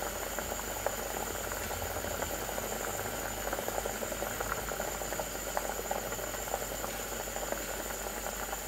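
Fish curry boiling vigorously in an earthenware pot under a steel lid set ajar: a steady bubbling with many small irregular pops.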